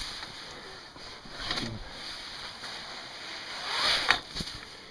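Packed snow cut by a MinnSNOWta Roof Razor roof rake sliding down the rake's slide and falling off, a soft rushing swish that swells near the end, with one sharp knock about four seconds in.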